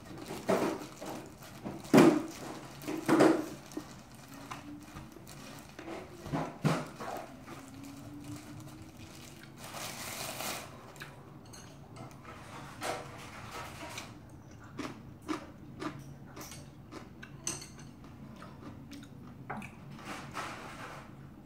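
A plastic food glove crinkling and rice being squashed as rice mixed with crunchy pork cartilage is pressed into balls in a pan, with crunchy chewing. A few louder clicks and knocks stand out, the loudest about two and three seconds in.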